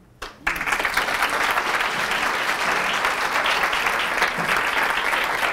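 Audience applauding, the clapping breaking out about half a second in and going on steadily.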